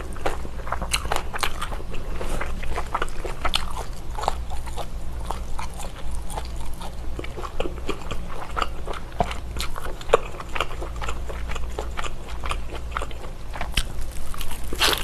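Close-miked biting and chewing of a thick chunk of baked slab bacon: a dense run of sharp, crackling mouth clicks, with a louder burst near the end.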